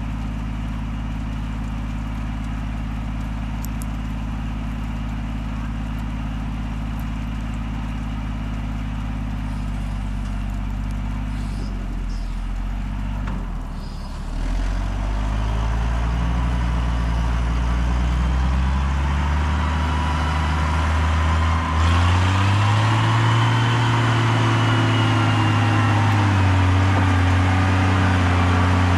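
An engine running steadily, its pitch stepping up about halfway through and again a little later, as if revved or put under more throttle.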